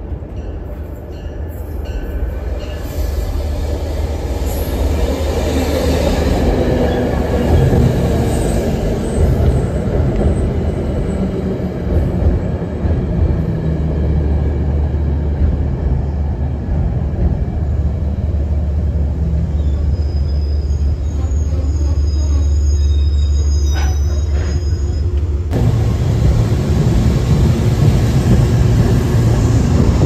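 A Metro-North push-pull train of coaches with a P32AC-DM diesel locomotive at the rear rolls past at close range. It makes a steady, loud rumble of wheels and running gear over the rails, with thin high wheel squeals partway through.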